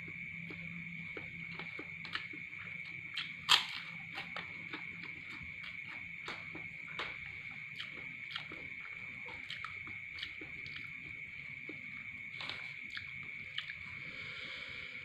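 Eating noises from a metal spoon scraping and clicking on a paper food wrapping, with chewing, as scattered small clicks; the sharpest comes about three and a half seconds in. A steady high cricket trill runs underneath throughout.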